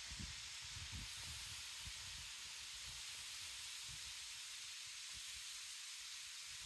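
Faint, steady background hiss with a few soft, low bumps: the room or outdoor tone of the recording, with no distinct sound event.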